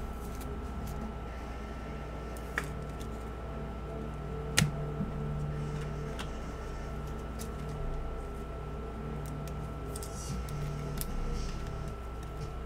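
Trading cards and packs being handled on a tabletop: a few light clicks and a short crinkly rustle near the end, over a steady electrical hum.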